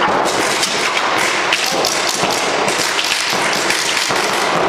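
Irregular rapid shots from Reball paintball markers and the knocks of balls striking bunkers, over a steady din of noise.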